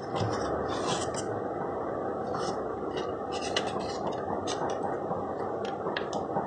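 Plastic back cover of a Moto E4 smartphone being pried off by hand: scraping with a string of small, sharp clicks as its clips let go.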